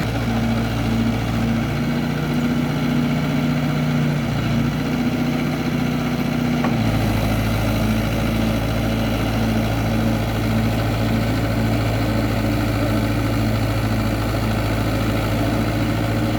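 Tractor engine running steadily while ploughing, its note shifting a few times in the first seven seconds, then holding even.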